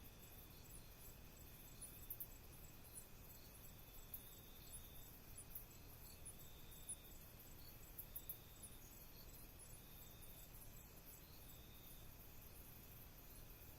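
Faint night chorus of crickets and other insects: steady high trilling, with one call pulsing on and off about every second and a half and scattered faint high ticks over a low hiss.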